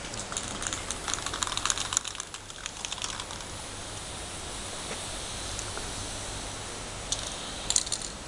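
Chalk scratching and tapping on asphalt in quick, dense strokes as letters are written on the street. The strokes come in a busy patch at the start and again about seven seconds in, with a quieter stretch between.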